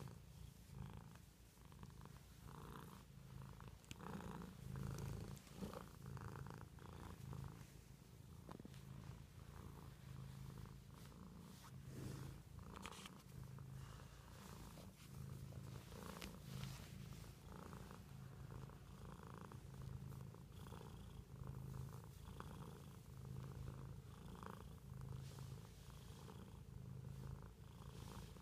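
Domestic cat purring while being stroked on the head, a low rhythmic rumble that swells and eases with each breath.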